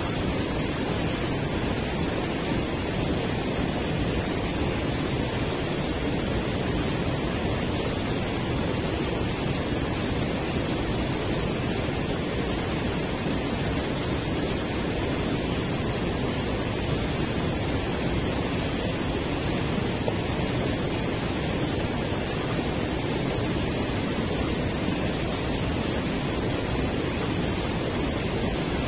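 River water spilling over a low concrete weir: a steady, unbroken rush of falling water.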